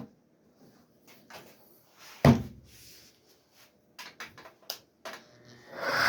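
Workshop handling noises: scattered light clicks and one sharp knock about two seconds in. Near the end a random orbital sander's motor starts to spin up.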